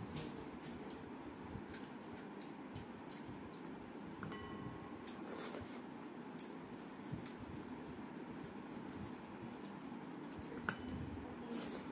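Hand squishing and mixing rice with dal on a steel plate, with many small wet clicks of eating, over a steady low background hum. A metal dish clinks and rings briefly about four seconds in, and there is a sharper clink near the end.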